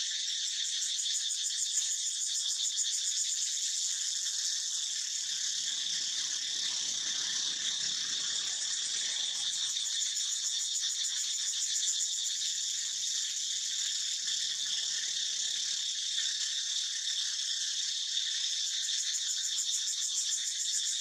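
A steady, high-pitched chorus of insects, a continuous buzz with a fast, even pulsing.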